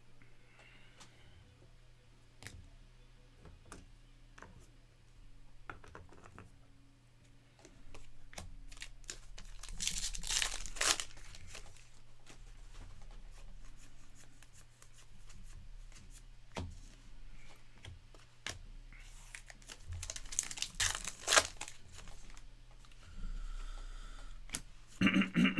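Trading card pack wrappers being torn open and crinkled, with two longer tearing passes about ten seconds in and again around twenty seconds. Small clicks and rustles of cards being handled come in between.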